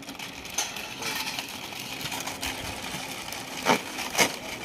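Several plastic crisp packets of Balaji wafers being crinkled and torn open, a continuous rustling crackle, with two louder snaps near the end.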